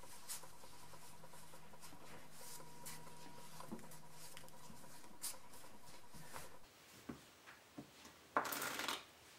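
A deck of playing cards handled on a felt close-up pad: soft taps and slides as packets are cut and squared, then near the end a brief riffle shuffle of the two halves, the loudest sound.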